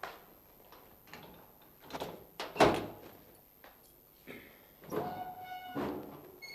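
Wooden almirah (cupboard) door being worked open: several clunks and rattles, the loudest about two and a half seconds in, and a short creak near the end.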